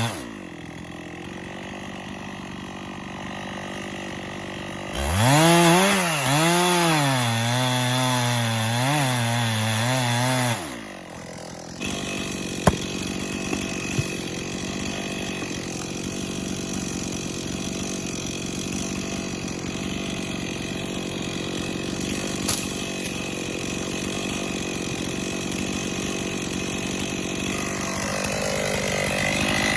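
Chainsaw cutting the felling notch in a tree trunk: the engine runs lower at first, then is revved under load with its pitch wavering from about five to ten seconds in, and drops back to a steadier, lower run with a couple of sharp knocks. It picks up again near the end.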